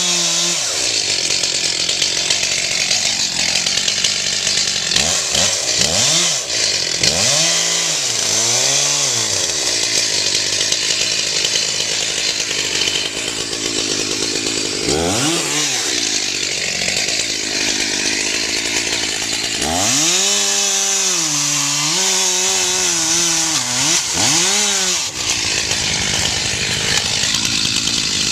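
Stihl two-stroke chainsaw running and cutting into a tree. Its engine pitch rises and falls several times as it revs and comes under load.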